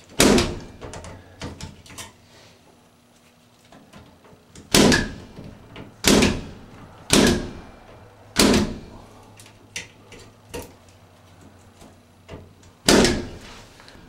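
Impact punch-down tool with a 110 blade seating Cat5e wires into the slots of a patch panel: six loud, sharp snaps at uneven intervals, with fainter clicks between.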